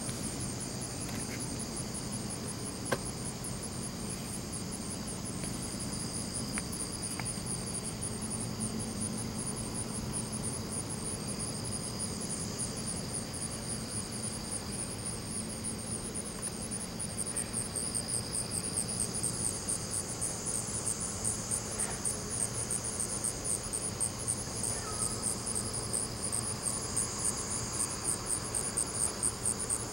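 A chorus of night insects chirping in a rapid, even pulsing that grows louder about halfway through, over a faint low hum.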